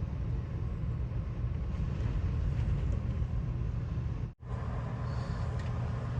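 Strong dust-storm wind rumbling and buffeting, a steady low roar with noise over it; it cuts out for a moment a little over four seconds in.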